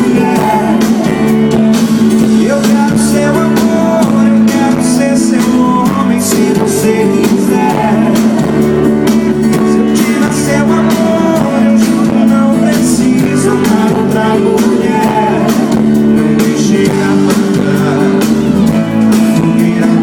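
Live band music with guitars and singing, loud and steady.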